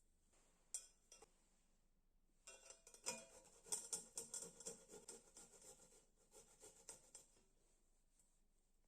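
Kitchen utensils clinking and knocking against dishes: a short clink about a second in, then a run of irregular clinks and knocks lasting about five seconds.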